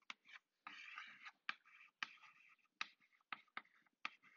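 Chalk on a blackboard while a figure is being drawn: faint sharp taps and short scratching strokes, with one longer scratch about a second in and about half a dozen separate taps after it.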